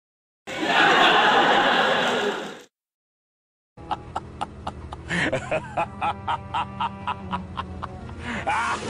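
Two editing sound effects in a row: a loud, noisy burst lasting about two seconds, then, after a short silence, a rhythmic beat with a laughing voice over it.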